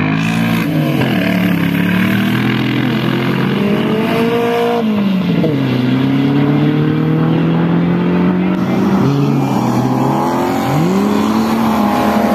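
Off-road race car engines revving hard, the pitch climbing and falling as the cars accelerate and ease off. The pitch drops sharply about five seconds in, holds steady for a few seconds, then rises and falls twice near the end.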